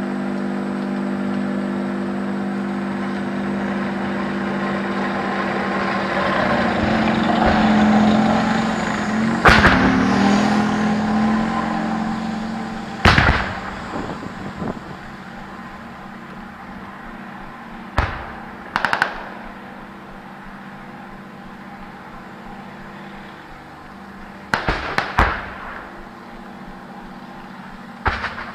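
Armoured vehicle's engine running, swelling louder about eight to ten seconds in and then fading away. Scattered gunshots, some in quick pairs, crack out through the second half, the loudest about ten and thirteen seconds in.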